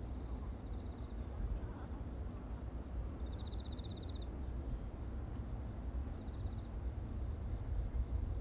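Steady low rumble of a jet airliner climbing away after takeoff. A high, buzzy insect trill repeats three times over it, loudest about three seconds in.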